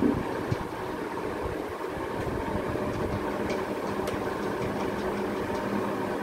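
A steady mechanical hum, with a few light plastic clicks as the dough-hook attachments are fitted into a red electric hand mixer. The sharpest click comes right at the start and another about half a second in.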